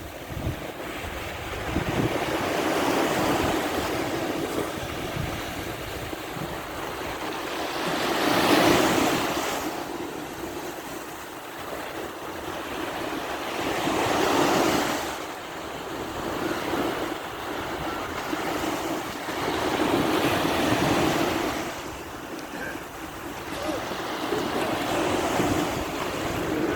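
Sea surf washing onto the shore, swelling to a peak and ebbing away about every six seconds, with some wind on the microphone.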